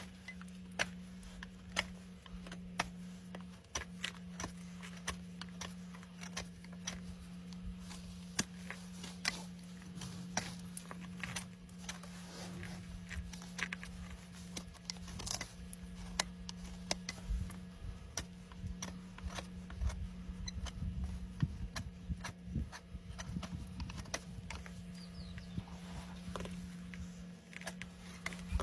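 Hoof trimming tools working on a horse's overgrown hoof: repeated sharp clicks and snaps, with heavier knocks in the middle stretch, over a steady low hum.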